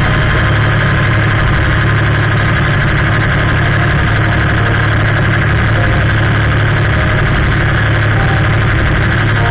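Tractor engine running steadily while pulling a hydraulic finger-type vine trimmer that is cutting the tops of the vine shoots.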